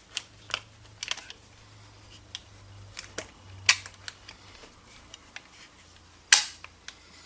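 Browning Buck Mark .22 pistol being handled: a series of sharp mechanical clicks and clacks at irregular intervals, the loudest about six seconds in.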